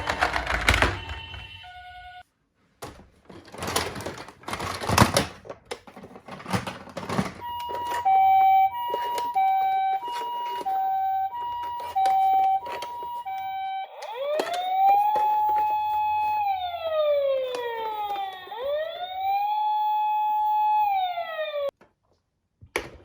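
Toy minicar sirens: first a rattling clatter of small toy cars rolling down a slope, then an electronic two-tone high-low ambulance-style siren switching about twice a second. That gives way to a wailing police-style siren that rises, holds and falls twice, then cuts off suddenly near the end.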